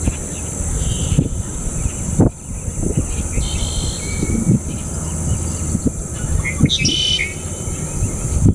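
Ducklings peeping in short, high chirps: a few about a second in, more around three to four seconds and a cluster near seven seconds. Underneath run a steady high insect drone and a low rumble.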